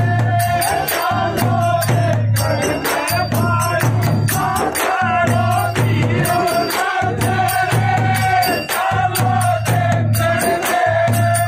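Men singing a Holi phag song together, accompanied by chang frame drums beaten in a steady rhythm.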